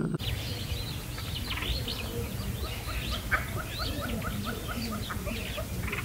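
Several small birds chirping and twittering together, with a quick run of about seven short repeated notes in the middle, over a steady low background rumble.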